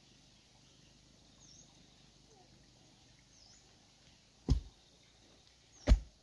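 Two dull thuds about a second and a half apart, near the end: a wooden post lifted and rammed down into the garden soil to set it upright for a trellis. A few faint bird chirps sound in between.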